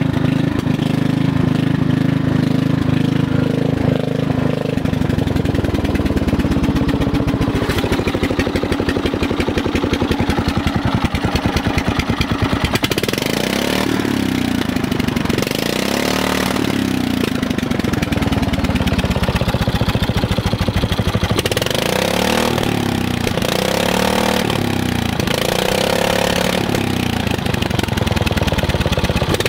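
A 12 hp Briggs & Stratton single-cylinder engine on a Craftsman riding tractor, running with an open exhaust manifold and no muffler. It runs steadily at first, changes speed about five seconds in, and in the second half is revved up and down over and over, its pitch rising and falling about every two seconds.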